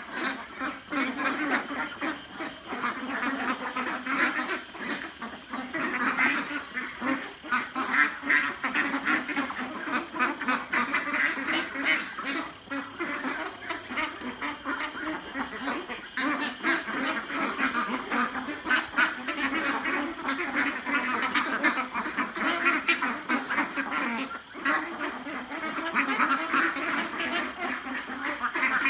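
A flock of 40-day-old domestic ducks quacking without pause while they feed, with many short clicks of bills pecking at the food.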